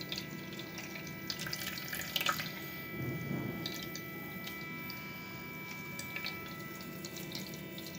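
Thin fruit juice trickling and dripping into a bowl as blended pulp is wrung out by hand through a thin cloth, with scattered soft wet crackles from the cloth.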